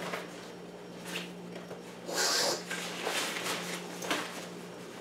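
Nylon fabric of a hiking backpack rustling as its main compartment is opened and rummaged, with the loudest rustle about two seconds in.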